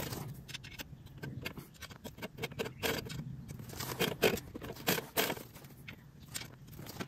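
Irregular small clicks and light scraping of metal parts being handled, a few sharper knocks about four and five seconds in, from hand work setting the bed knife of a manual reel mower back against the reel.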